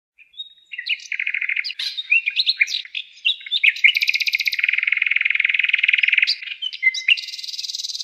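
Bird song: quick chirps and fast rattling trills, with a long high trill about halfway through.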